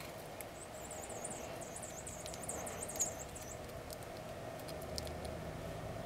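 A small songbird gives a high, thin series of quick wavering notes for about three seconds, over a steady low hum. A few light ticks follow near the end.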